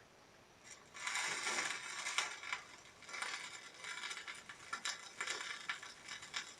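Rustling, crinkling handling noise with many scattered sharp clicks, starting about a second in.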